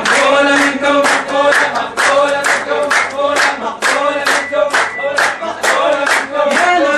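Men's voices singing a chant to a steady beat of hand clapping, about two to three claps a second.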